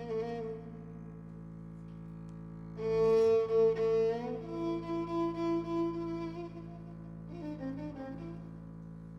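Violin playing an Arabic song melody with sliding notes over a steady low drone. A loud phrase starts about three seconds in, and a short one follows near the end.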